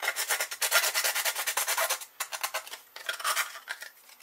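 Hand file rasping quickly back and forth along the edge of a cut acrylic mirror blank, with a brief pause about two seconds in. The file is a fairly coarse one, perhaps a bit rough for the plastic.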